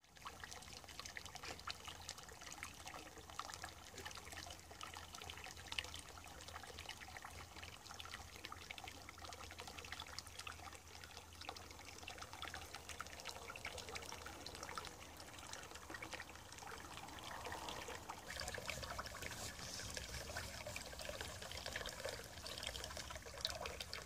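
Water pouring over a small concrete weir into a ditch, a steady trickling and splashing.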